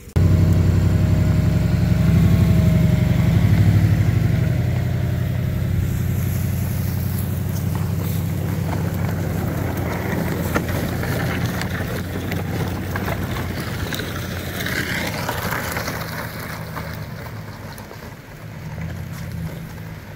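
Pickup truck engine running steadily, getting gradually quieter toward the end.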